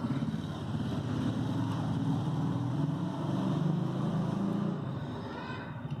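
Steady low mechanical drone, like a running engine, with a fluttering pulse.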